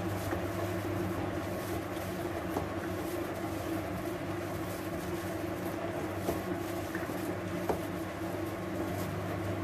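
Steady low hum, with a few faint soft taps as hands knead mashed potato, paneer and flour against a steel bowl; the sharpest tap comes about three quarters of the way in.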